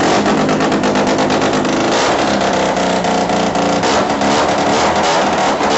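Sachs 303 Wankel rotary snowmobile engine firing up for the first time and running loud and steady, its pitch wavering with the throttle and dipping slightly about four seconds in.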